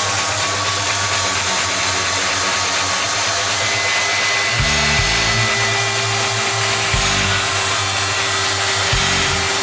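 Small corded electric power tool running at a steady high speed as it cuts into a block of ice, with a steady whine over its motor noise. Low beats of background music come in every two seconds or so from about halfway through.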